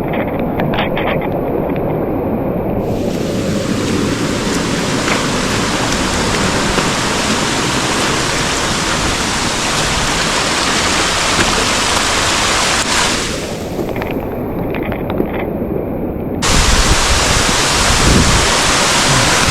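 Loud, steady rush of fast-flowing water from a storm-swollen mountain stream. About three-quarters of the way through, wind starts buffeting the microphone with a low rumble.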